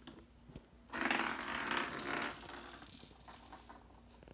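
An F1 Bengal kitten's claws scratching at the carpeted base of a cat tree: a scratching noise lasting about two seconds, starting about a second in, then fading out.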